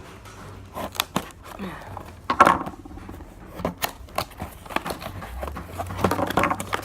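Plastic packaging being handled: a string of sharp clicks and knocks at irregular intervals, with a brief murmur of voice twice.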